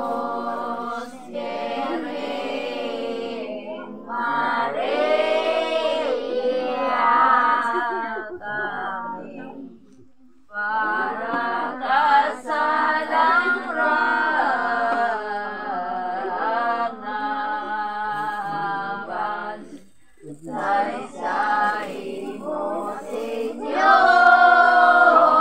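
A group of children singing together without accompaniment, in long phrases with short breaks about ten and twenty seconds in.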